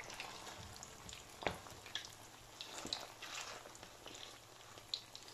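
Battered eggplant strips shallow-frying in hot oil: a faint sizzle with scattered sharp pops and crackles.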